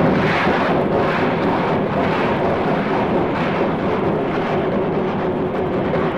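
A man imitating a moving train with his mouth and voice: a loud, steady rushing rumble with a droning tone running underneath, starting abruptly.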